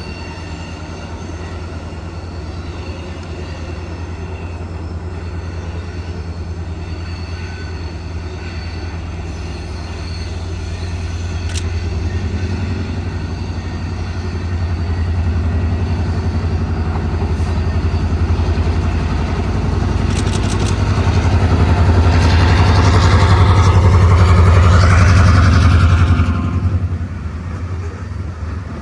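Diesel locomotive leading a train, its engine running with a steady low drone that grows louder as it approaches. The sound is loudest a few seconds before the end, with added rail and wheel noise, then drops off sharply.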